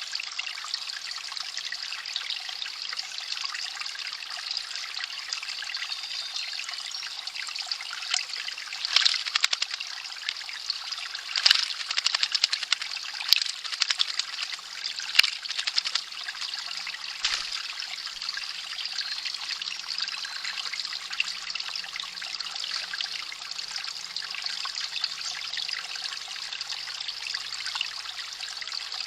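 Mountain spring water trickling steadily. Between about 8 and 16 seconds in there is a run of louder, sharper splashes, which fit an American robin bathing in the water.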